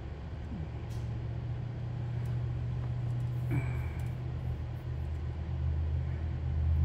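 A low, steady mechanical rumble, like a motor running, growing louder toward the end, with a brief high tone about halfway through.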